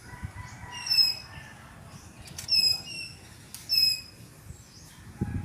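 A bird chirping: short, high calls, each dipping slightly in pitch, about four times.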